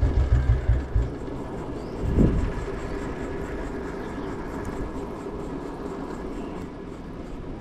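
Steady running noise of a moving vehicle, with a brief louder swell about two seconds in. A hip-hop beat runs out within the first second.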